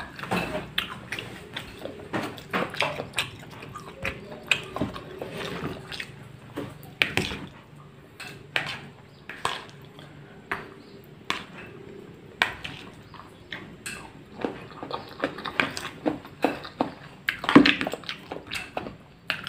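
Mukbang eating sounds: wet chewing and mouth smacks, with a metal spoon clicking and scraping against a plastic bowl of rice and sayur asem soup, in an irregular run of short clicks.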